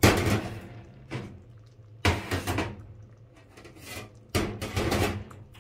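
A run of sudden knocks and clatters from things being handled at the stove: about five in all, the loudest right at the start and about two and four and a half seconds in. A low steady hum runs underneath.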